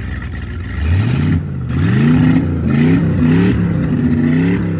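Engine revving: its pitch rises in several quick pulls, then holds steady and high.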